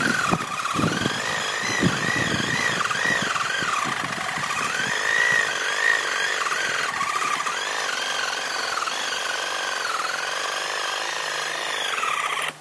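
Ryobi cordless reciprocating saw cutting through a small tree trunk. Its motor whine wavers up and down in pitch without a break as the blade bites and frees in the wood.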